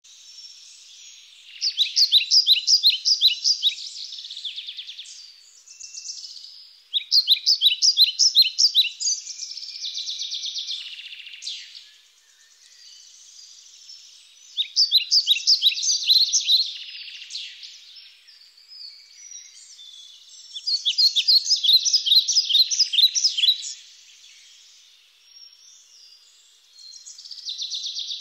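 Birdsong: a bird sings a quick run of repeated chirps lasting two to three seconds, about every six seconds, five times, with softer twittering in between.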